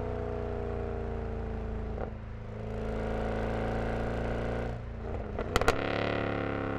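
Mercedes-AMG M156 V8 with its exhaust resonators deleted, running steadily at a light load. The note dips briefly about two seconds in, eases off again near five seconds, and is cut by a few sharp cracks at about five and a half seconds before the engine note picks up again.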